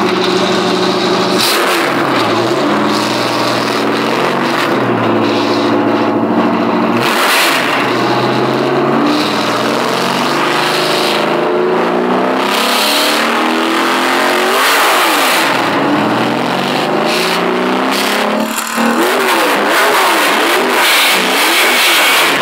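NASCAR stock car's V8 engine being revved, its pitch climbing and falling back over and over, with quicker blips in the last few seconds. The recording is harsh and overloaded.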